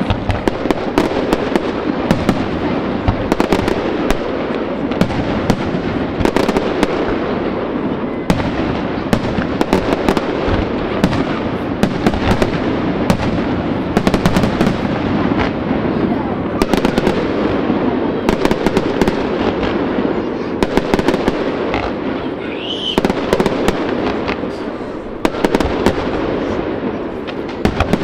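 Fireworks display: a continuous barrage of aerial shells bursting, with many sharp bangs and crackling in quick succession.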